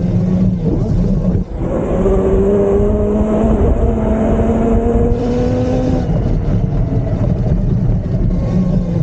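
Heavy low rumble of wind on the microphone while riding, with a motor's whine climbing slowly in pitch from about two to six seconds in.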